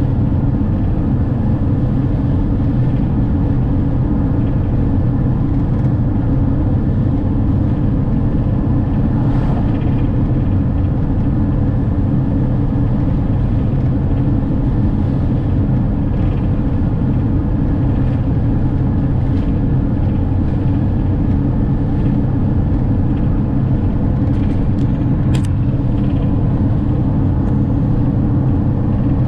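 Steady engine and tyre noise of a camper van cruising on a sealed road, heard inside the cab.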